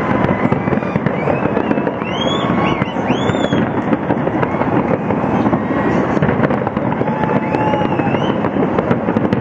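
A fireworks display: a dense, unbroken barrage of bangs and crackling from many shells bursting at once, with a couple of rising-and-falling whistles about two and three seconds in.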